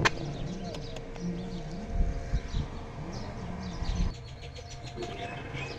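Birds chirping over outdoor background noise, with a sharp click near the start as a key turns in a motorcycle top-box lock. A low wavering hum runs underneath and drops away about four seconds in.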